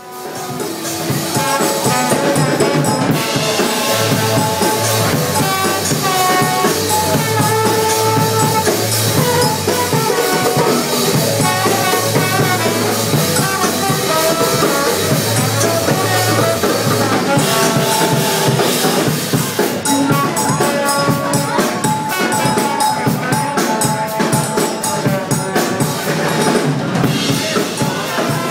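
A live band playing loudly, the drum kit to the fore over held instrument notes. The music rises in during the first second.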